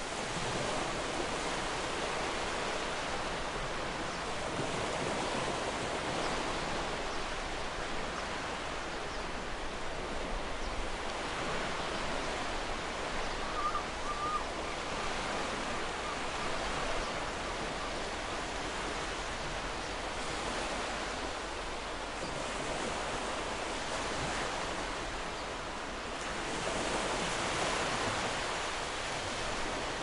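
Ocean waves breaking gently on a shore, the surf swelling and falling back every several seconds. A brief faint call near the middle, a distant gull.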